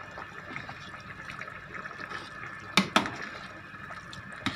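Chicken macaroni soup simmering in a rice cooker pot while a metal ladle stirs through it, with two sharp clacks of the ladle against the pot a little under three seconds in and one more near the end.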